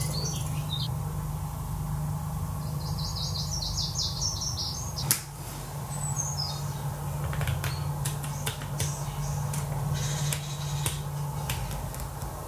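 Light clicks and taps of a felt-tip marker and small metal parts being handled on a tin can, over a steady low hum. A bird trills with a quick run of short chirps a few seconds in and gives a falling chirp about six seconds in; the sharpest sound is a single click about five seconds in.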